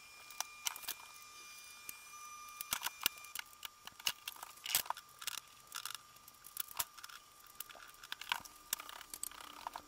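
Scattered light clicks, taps and knocks of hand work at wooden kitchen base cabinets, irregular and sharp, over a faint steady high tone.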